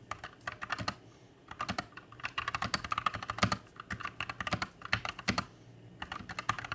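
Typing on a Gamakay GK61 60% mechanical keyboard with Gateron brown optical tactile switches and PBT pudding keycaps: irregular runs of quick keystrokes, broken by two short pauses.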